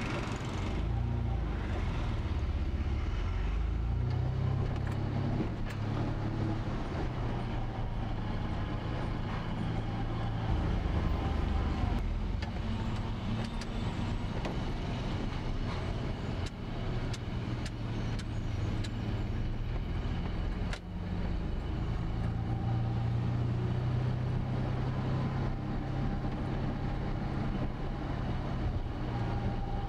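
A car driving through traffic: a steady low engine and road hum, with light clicks here and there and a short knock about two-thirds of the way through.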